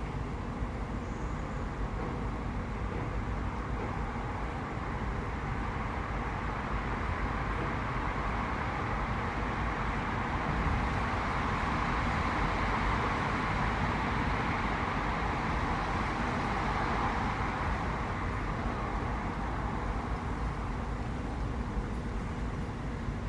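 A passing vehicle: its steady, rushing noise slowly grows louder, peaks about halfway through, then fades away.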